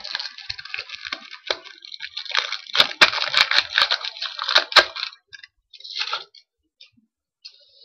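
Crumpled plastic trading-card pack wrapper crinkling as it is handled: a dense crackling rustle for about five seconds, with several sharp snaps in its second half, then one short crackle a second later.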